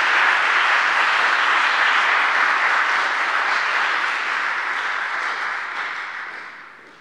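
Audience applauding steadily, then dying away over the last couple of seconds.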